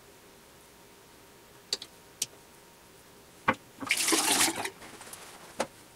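A short rush of water splashing, just under a second long, about four seconds in, tailing off into a quieter trickle. A few small clicks and knocks of handling come before it and one after.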